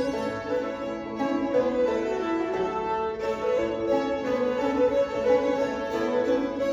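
Two fiddles and a five-string banjo playing an old-time fiddle tune together, the fiddles bowing a quick, continuous melody in unison.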